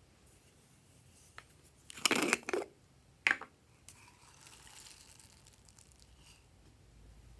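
Hard plastic strawberry-shaped bottle being handled: a short burst of plastic knocking about two seconds in and a sharp click just after, then a faint soft rustle as small foam beads pour out onto the slime.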